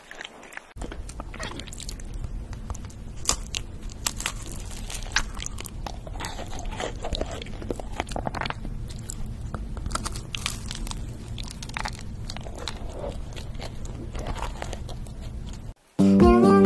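Close-miked ASMR eating: repeated crisp bites, crunches and chewing into chocolate desserts, among them a chocolate macaron, over a steady low hum. Music starts just before the end.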